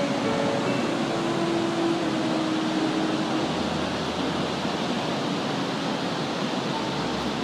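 Waterfall and the white-water river below it rushing with a steady, even roar.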